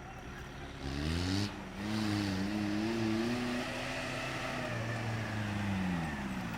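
Off-road 4x4's engine revving under load. The revs climb about a second in, hold with a wavering pitch for several seconds, then drop near the end.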